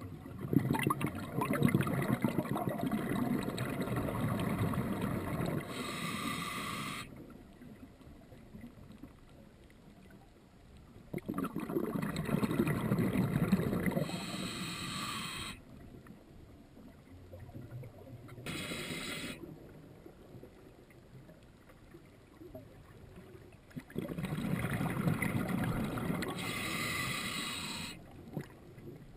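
Scuba diver breathing underwater through a regulator: three long rushes of exhaled bubbles, several seconds each and spaced several seconds apart, with short higher hissing from the regulator in between.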